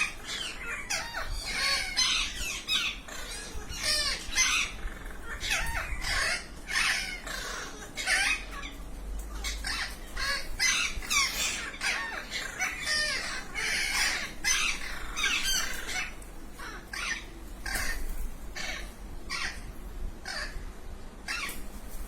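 Parrot giving a long run of short squawks and calls, one after another with brief gaps.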